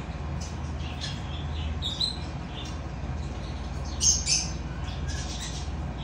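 Cockatiels calling: many short, high chirps and squawks scattered throughout, with two louder squawks about four seconds in, over a steady low hum.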